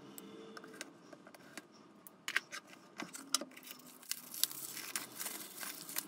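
A cardboard box being cut open and unpacked by hand: scattered light clicks and taps, then paper wrapping rustling and crinkling as it is pulled off the charger near the end.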